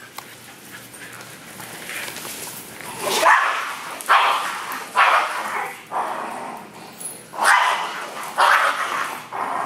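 Dogs barking in a string of short, sharp bursts, starting about three seconds in, as the dogs of a pack square off with each other.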